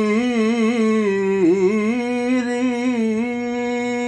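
A solo voice singing an Urdu naat (devotional song), drawing out one long held note with wavering ornaments through the first two seconds, then holding it steady.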